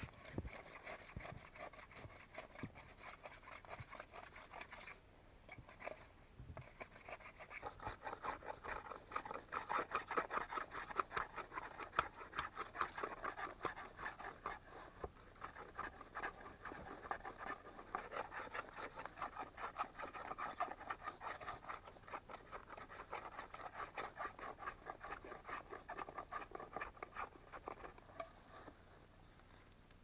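A hand-held blade scraping bark and wood off a pole in quick, repeated strokes, with a brief pause about five seconds in.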